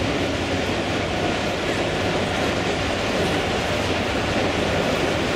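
Model trains rolling along the layout's track, a steady rumble with some wheel clatter, over the constant noise of a large exhibition hall.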